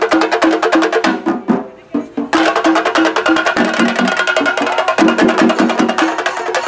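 Chenda melam: a row of Kerala chenda drums beaten fast with sticks in a dense, even rhythm. The playing drops away briefly about a second in and comes back in full about a second later.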